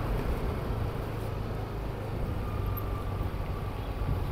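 Vehicle engine running steadily with road noise while driving along a street.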